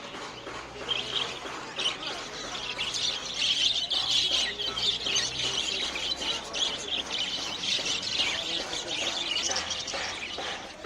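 Many caged pet birds chirping together in a dense, busy chatter that swells a few seconds in and eases near the end.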